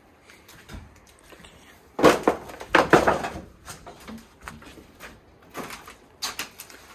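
Scuffing and knocking noises, with a burst of crunching and scraping about two seconds in, then scattered knocks.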